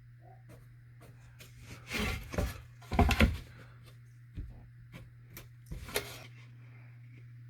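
A piece of sheetrock being handled and rubbed against another surface, making several short scraping rustles, the loudest about two and three seconds in, then a few lighter knocks and scrapes.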